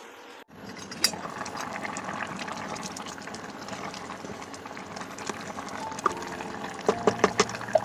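Steady watery noise of liquid bubbling in cooking, starting about half a second in, with scattered clicks and a few short ringing clinks near the end.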